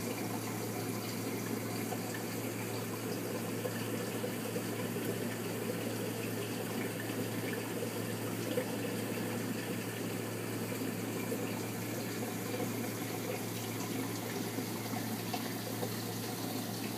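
Steady rush and trickle of circulating water from saltwater aquarium filtration, with a constant low hum underneath.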